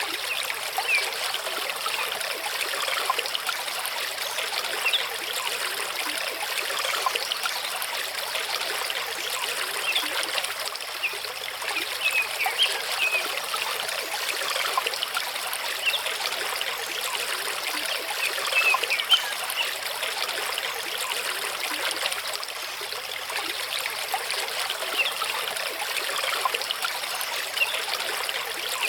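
Mountain stream running over rocks: a steady rushing babble of water with many small splashes.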